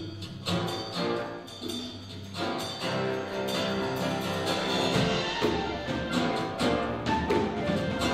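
Live worship band playing an instrumental passage on piano, acoustic guitar, bass guitar, drums and clarinet, the sound growing fuller about five seconds in.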